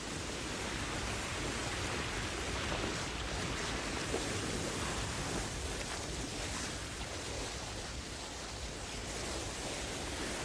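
Steady rushing of wind and sea waves around a sailing ship, an even noise that swells and eases slightly, with no music or voices.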